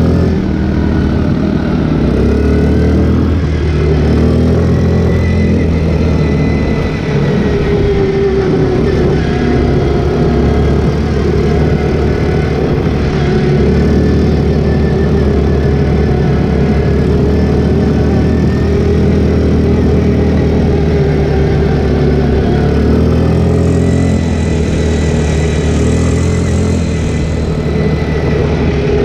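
ATV (quad bike) engine running while the quad is ridden along a dirt trail, heard from the rider's seat. The engine note rises and falls a little with the throttle.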